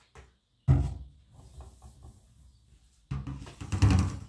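Things being handled: one heavy thump about a second in, a few light taps, then a longer rattling clatter near the end.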